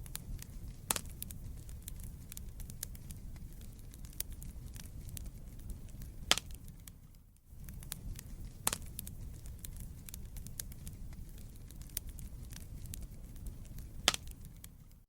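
Wood fire burning in a fireplace: a steady low rumble of flame with many small crackles and four sharp pops from the logs. The sound drops out for a moment about seven seconds in.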